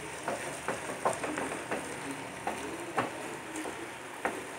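Paneer, capsicum and onion sizzling in a frying pan while a wooden spatula stirs in the sauces, with scattered light knocks and scrapes of the spatula against the pan.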